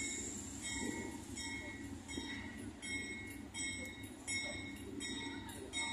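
Low rumble of a departing train's GE AC44i diesel locomotives, with a bell ringing steadily about once every three-quarters of a second.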